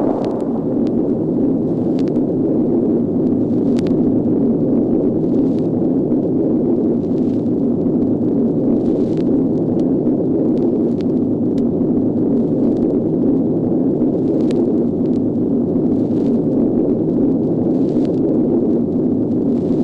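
Nuclear explosion sound effect: the sustained, steady rumble of the blast after its initial detonation, with scattered crackles throughout.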